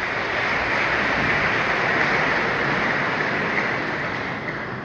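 Audience applauding: a dense wash of many hands clapping that swells and then fades toward the end.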